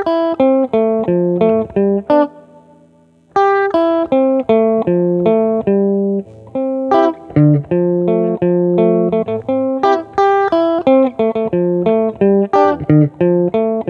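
Clean electric guitar, Stratocaster-style, picking a quick konpa groove line of short plucked notes. About two seconds in, one note rings out and fades before the line picks up again.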